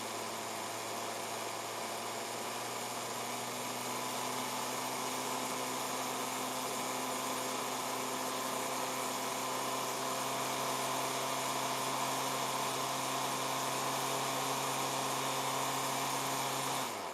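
Electric router motor whining steadily at high speed, its pitch creeping slightly upward over the first several seconds, then cutting off abruptly near the end.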